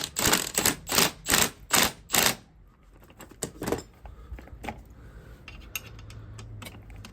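Ratchet wrench clicking in quick, even strokes, about six in a row, then a few scattered clicks as the nut on the compressed strut spring assembly is worked loose.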